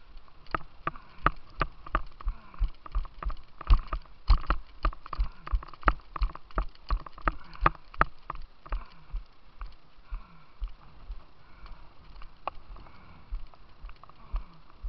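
Quick, regular footsteps with the handheld camera jolting at each step, about three a second, stopping about nine seconds in. Under them runs a steady rush of white water from the artificial slalom course.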